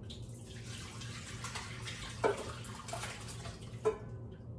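Creamy seafood bisque poured from a pot into a crock pot: a steady pouring splash for about four seconds, with two knocks partway through and near the end, then the pour stops.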